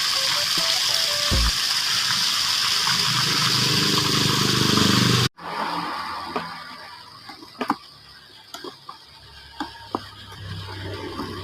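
A smartphone ringtone tune with a bass beat plays over a loud steady hiss, and the tune ends about a second and a half in. The hiss cuts off abruptly a little after five seconds. What follows is much quieter, with a few scattered clicks and taps.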